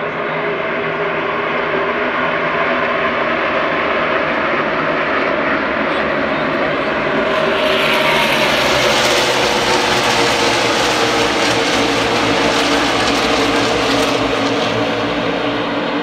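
NASCAR Cup stock cars' V8 engines running at racing speed, a steady drone from the field around the track. About seven seconds in it grows louder and brighter as cars pass close by, their engine pitch dropping as they go past.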